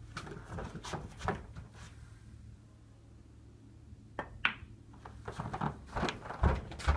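Snooker balls clicking: a sharp click of the cue tip on the cue ball a little over four seconds in, followed by a run of clacks and knocks as the balls collide and rebound off the cushions. Fainter clicks of rolling balls come in the first two seconds.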